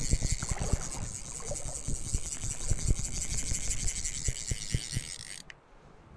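Fly reel's click-and-pawl drag buzzing as line runs through it, cutting off suddenly about five and a half seconds in, with low knocks of rod and gear handling underneath.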